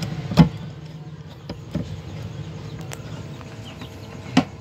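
Hand-tool work on metal fittings: two sharp clicks, about four seconds apart, with a few fainter taps between, as pliers tighten a fan's mounting nut, over a steady low hum.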